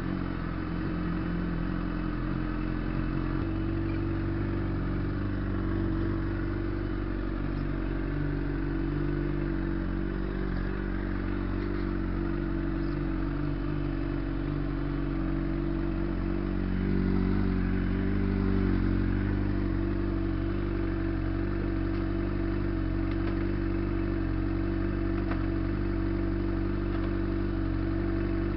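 Honda CBR600RR's inline-four engine idling steadily, heard from the rider's seat, running a little louder for a couple of seconds about seventeen seconds in.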